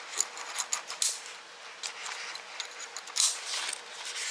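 A thin nylon Patagonia hip pack being handled, its fabric rustling and its plastic buckle and webbing strap clicking and scraping in short scratchy bursts, with a louder rustle about three seconds in.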